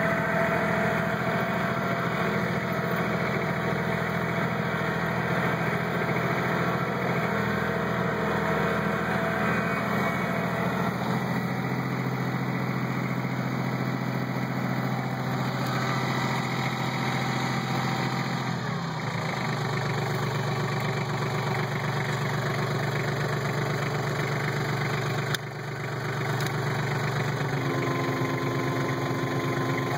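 Kubota B1700 HSD compact tractor's three-cylinder diesel engine running steadily under snow-plowing work. About two-thirds of the way through, its note drops and settles at a slightly lower, steady pitch.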